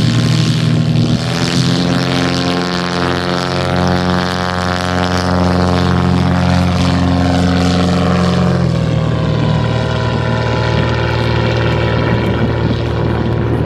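Single piston engine and propeller of an experimental SuperSTOL Cessna 170B taildragger at full takeoff power through a short takeoff roll, lift-off and climb. The steady engine and propeller note drops in pitch about two-thirds of the way in as the plane goes past and climbs away.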